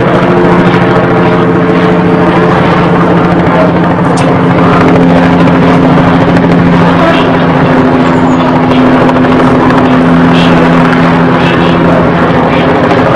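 Helicopter flying overhead: a loud, steady rotor beat with the hum of its engine.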